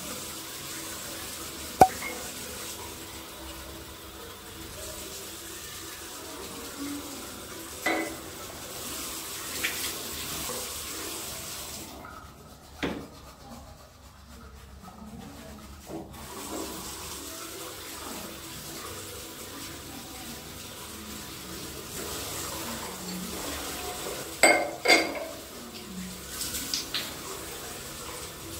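Bathroom sink tap running into a ceramic basin, with a few sharp clinks of a drinking glass knocking on the sink, the loudest a single one about two seconds in and a pair near the end. The water stops for a few seconds in the middle, then runs again.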